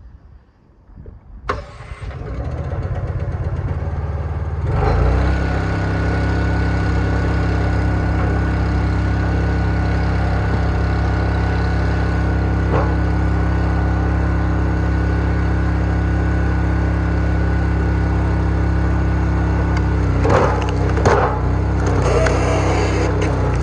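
Gas engine of a Wolfe Ridge Pro X hydraulic log splitter starting and then running steadily. Near the end, a few sharp cracks of wood beginning to split.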